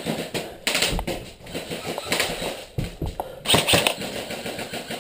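Airsoft guns firing: a scattered series of sharp cracks and clicks, with the loudest cluster about three and a half seconds in.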